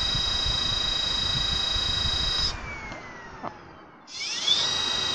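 Rewired 36-pole washing machine motor, driven by an e-bike controller, spinning at full speed with a loud, steady high-pitched electric whine over a low mechanical rumble. About two and a half seconds in the drive cuts off and the pitch falls as the rotor coasts down. About four seconds in it spins up again, the whine rising quickly back to the same steady pitch.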